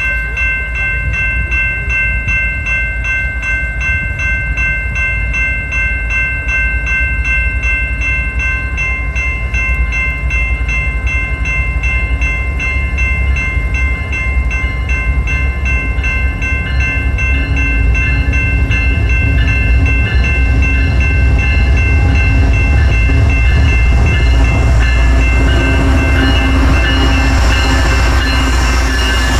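Railway crossing bell ringing in a fast, regular pulse while a CN freight train led by a GE ET44AC diesel locomotive approaches. The locomotive's engine rumble grows louder through the second half, and the rolling wheels join in near the end.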